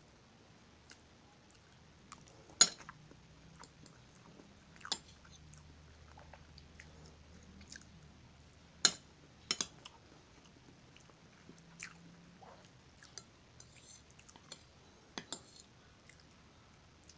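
Close eating sounds: quiet chewing of soft scrambled eggs and rice, broken by a few sharp clicks of metal cutlery, the loudest about two and a half and nine seconds in.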